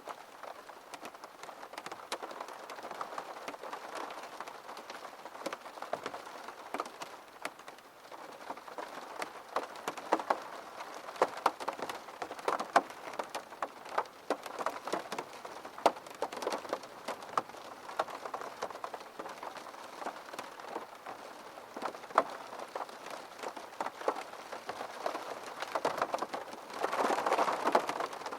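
Steady rain with many sharp individual drops tapping through a continuous hiss, swelling briefly louder near the end.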